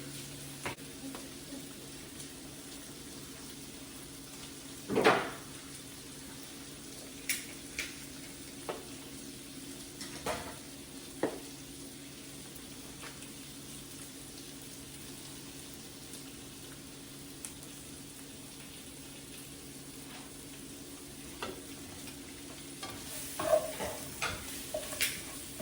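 Chicken pieces frying with onions and scallions in olive oil, a steady sizzle. Now and then a utensil knocks and scrapes against the pan, loudest about five seconds in, with several more knocks near the end.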